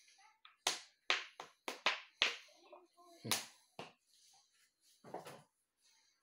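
Oil poured from a plastic bottle: a quick run of sharp pops and clicks, about three a second, as the bottle glugs, then a few separate knocks as it is handled.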